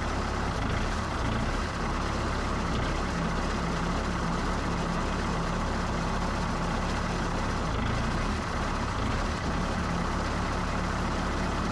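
Bobcat S160 skid steer's diesel engine running steadily during a test run of the auxiliary hydraulics, just after a leaking hydraulic line was replaced.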